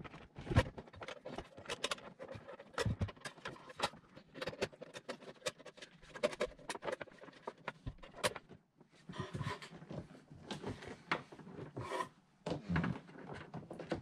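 Irregular clicks, knocks and rubbing as a metal RV converter/charger box is worked out of a tight cabinet opening, its wires scraping and rustling against the panel.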